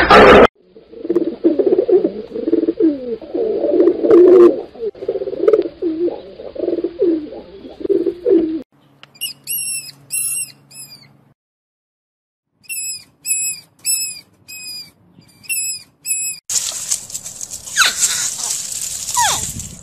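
A sequence of animal calls: after a brief loud burst, low wavering calls run for about eight seconds, then two runs of short, high chirps come at about three a second, and a rushing noise with some gliding sounds fills the last few seconds.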